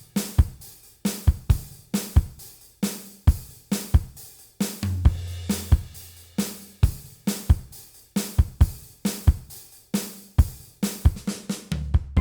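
Background music: a drum kit beat of kick, snare and cymbal hits, with a held bass note in the middle.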